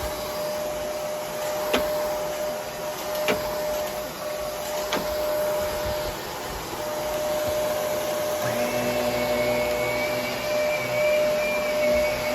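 Vacuum cleaner running steadily with a constant hum, with three sharp clicks about a second and a half apart in the first five seconds. About eight seconds in, a second, higher steady tone joins the motor sound.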